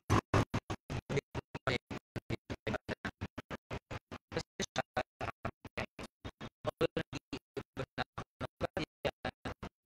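Broken-up, stuttering audio: short clipped fragments of sound, about seven a second, with silence between them, the audio cutting in and out rapidly.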